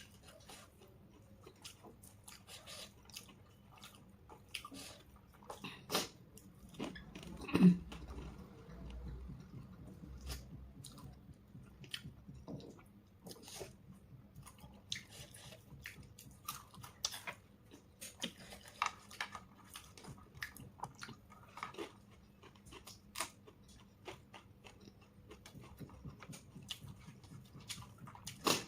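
Close-up chewing and biting of food, with irregular crunches and wet mouth clicks, and one louder short sound about eight seconds in.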